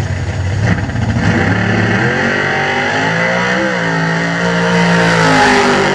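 Drag race car making a full-throttle pass down the strip, its engine climbing in pitch and dropping back suddenly at each gear change, loudest near the end.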